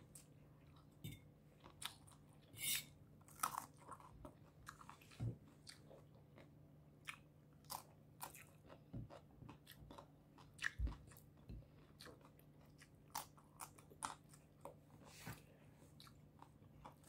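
Close-up eating sounds: short, scattered crunches and chewing as fresh cucumber slices and spiced shrimp are bitten and chewed, over a faint steady hum.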